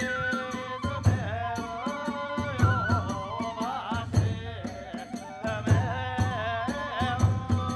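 Kagura ensemble playing: a yokobue bamboo flute melody over deep ōdō drum beats about once a second, with quick sharp clashes of tebyōshi hand cymbals several times a second.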